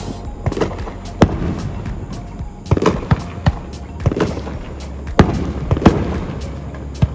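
Aerial fireworks going off: a dozen or so sharp bangs at irregular intervals, the loudest about a second in and again around five to six seconds in, with music in the background.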